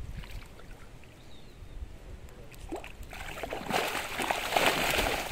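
Tilapia caught in a cast net thrashing and splashing in shallow water as the net is pulled in to the bank. The splashing starts about three seconds in and grows louder.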